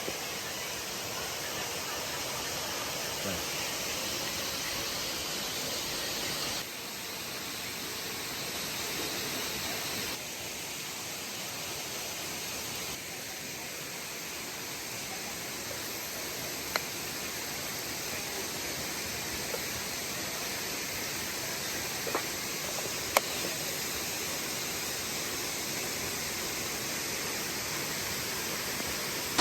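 Waterfall rushing: a steady wash of falling water, whose level shifts abruptly a few times, with a few faint clicks.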